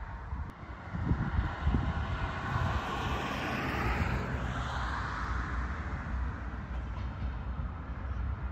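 Diesel train passing by: a low engine rumble and rolling noise swell about a second in, with a hiss that falls in pitch as it goes past.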